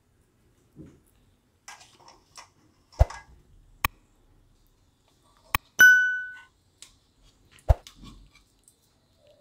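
A steel spoon clinking against the metal cylinder of a hand sev press as soft gram-flour dough is spooned in, with soft sticky handling noises between. There are several sharp clinks; the loudest, about six seconds in, rings on briefly with a clear metallic tone.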